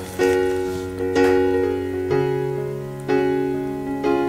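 Background piano music: slow chords struck about once a second, each ringing and fading before the next.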